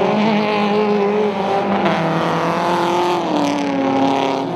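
Race car engine running hard at high revs, one steady engine note that drops in pitch a little over three seconds in.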